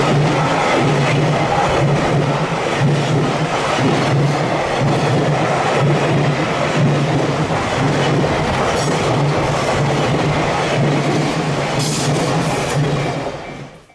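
A freight train's container flat wagons rolling past at speed, with a steady rumble and a rhythmic clatter of wheels over the rails. The sound fades out near the end.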